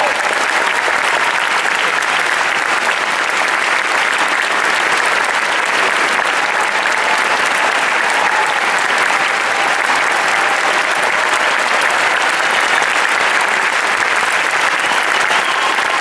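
Theatre audience applauding steadily: dense, sustained clapping from a full house during the curtain call.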